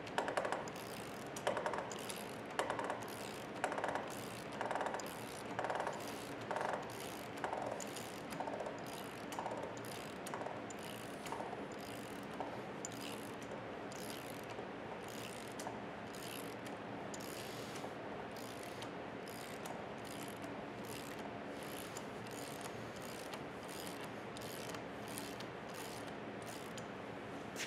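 Hand ratchet clicking as it is swung back and forth to turn the forcing screw of a bearing puller, drawing a bearing off a manual transmission mainshaft. The strokes come about once a second at first, then grow lighter and quicker after about twelve seconds, as the bearing comes up the shaft and the turning gets easier.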